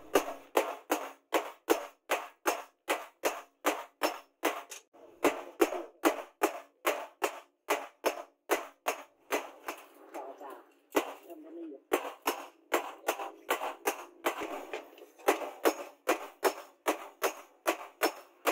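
Hammer blows on red-hot leaf-spring steel over a steel post anvil: a steady run of sharp strikes, about two or three a second, with a pause of about a second near the middle.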